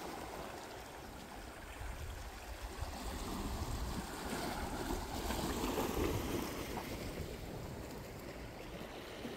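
Calm sea water washing softly against shoreline rocks, swelling slightly in the middle and easing off, with low wind rumble on the microphone.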